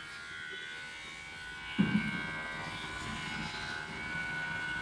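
Overhead electric fan running: a steady drone with several high steady tones. A single dull thump comes about two seconds in.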